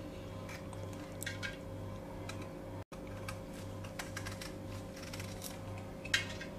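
Serrated kitchen knife cutting and scraping the skin off a raw green mango: short crisp scrapes, a few scattered strokes and a quick cluster near the end, over a low steady hum.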